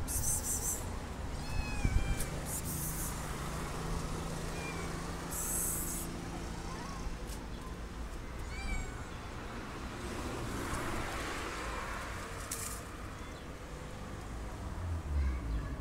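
A cat meowing several times, short high-pitched meows a few seconds apart.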